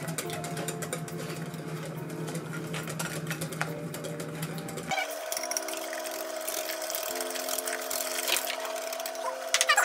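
Wire whisk beating cheesecake batter in a glass bowl: rapid, uneven clicking and scraping of the wires against the glass, over soft background music.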